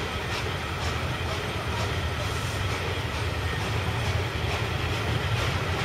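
Three-cylinder Peppercorn A1 Pacific steam locomotive 60163 Tornado pulling a train away from a station stop, heard from an open coach window: its exhaust beats come about twice a second over the steady low rumble of the train.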